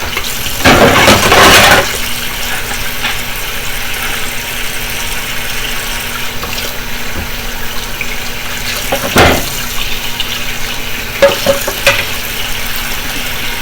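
Kitchen tap running into a sink while dishes are washed by hand, with a louder burst of noise about a second in and a sharp knock of dishware near nine seconds, then a few lighter clinks.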